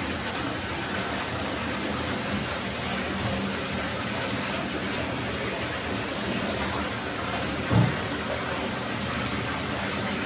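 Running bath water pouring and splashing steadily during a dog's bath, with one short low thump about eight seconds in.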